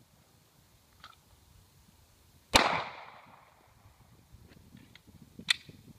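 A single pistol shot about two and a half seconds in, echoing as it fades. Light clicks from handling the gun come before and after it, with a sharper click near the end.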